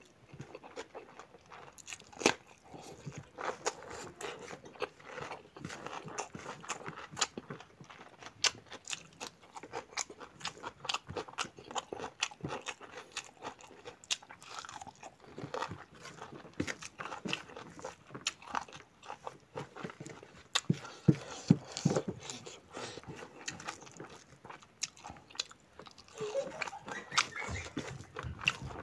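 A person eating close to the microphone: crunchy bites and chewing, with many quick mouth clicks throughout.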